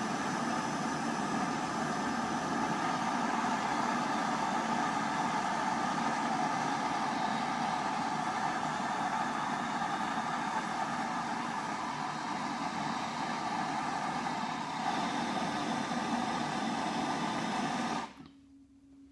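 Handheld gas blowtorch burning with a steady hiss, played on the base of a freshly thrown clay vase to dry and stiffen it. It cuts off suddenly near the end.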